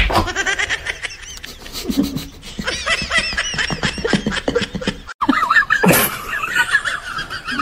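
A person laughing in quick, high giggles, cut off suddenly about five seconds in.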